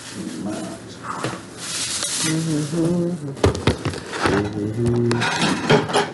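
Kitchen clatter: dishes and utensils clinking and knocking a few times, and a wall cabinet being opened.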